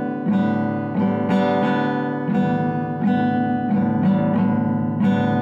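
Acoustic guitar music, strummed in a steady rhythm of about two strums a second.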